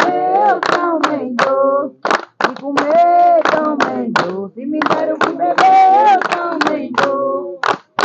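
A group of women and children singing an Umbanda hymn in unison while clapping their hands in a steady beat, about three claps a second. The song comes in long held phrases with a short break about two seconds in.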